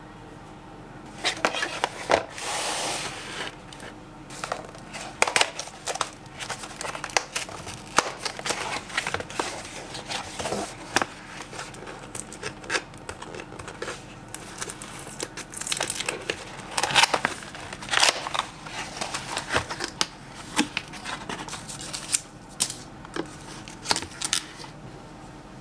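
Packaging being handled and torn open: irregular crinkling, tearing and rustling with many small clicks, loudest about two seconds in and again around two-thirds through.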